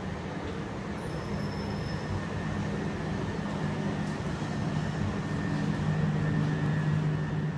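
Class 377 electric train's steady electrical hum with a low drone, slowly growing louder.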